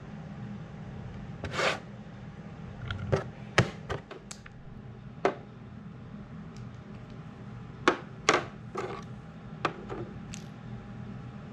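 Wooden game pieces clacking as they are picked up and set down on a wooden board: about a dozen sharp knocks at irregular intervals, over a steady low hum.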